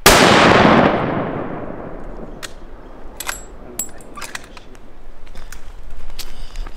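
A single rifle shot, its echo rolling away through the forest over about two seconds. Then a few sharp metallic clicks as the rifle is handled, and footsteps on a dirt road near the end.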